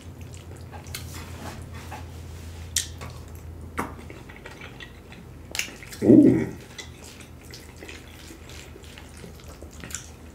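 Close-up eating sounds: a fork clicking against a plastic takeout tub and wet chewing of crawfish stew and rice, with a few sharp clicks and a short vocal sound of enjoyment about six seconds in.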